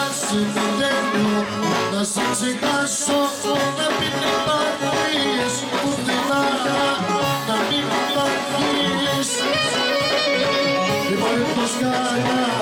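Live Greek folk music: a man sings into a microphone over an electronic keyboard.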